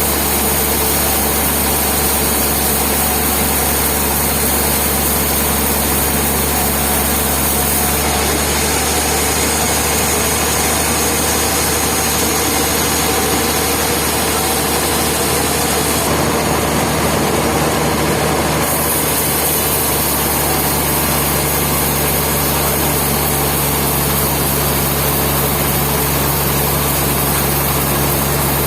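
Sawmill machinery running steadily at an even level, its tone shifting abruptly a few times.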